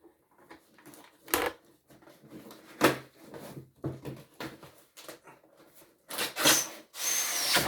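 Cardboard retail box being handled and opened: a few knocks and taps, then near the end two longer stretches of rasping, sliding cardboard.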